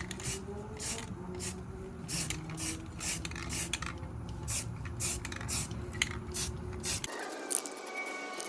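Short, evenly spaced hissing strokes, about two a second, from work on a car's wheel rims, over wind rumble on the microphone. About seven seconds in, the wind rumble cuts off abruptly, leaving a quieter background with faint steady tones.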